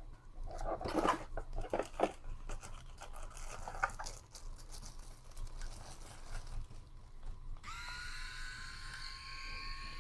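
Handling noises, rustling and clicks, then an electric shaver switches on about three-quarters of the way in and runs with a steady hum.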